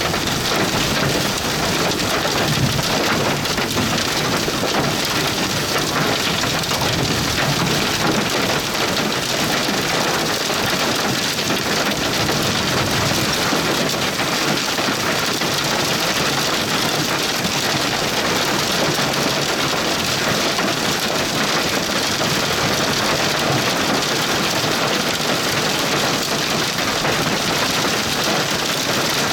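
Heavy rain pelting down steadily, a dense, even patter of countless drops with no let-up.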